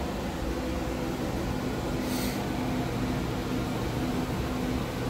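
Pit Boss vertical pellet smoker running, its fan giving a steady hum with a low drone underneath. A brief hiss about two seconds in.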